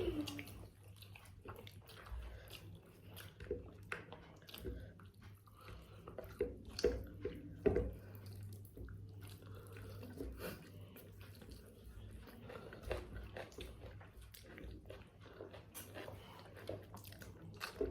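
People chewing and biting mouthfuls of biryani close to the microphone, with scattered small clicks, over a steady low hum.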